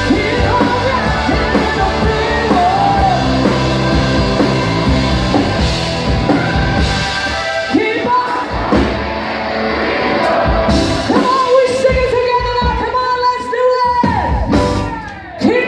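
A live blues-rock band playing with a singer, who holds one long note in the second half.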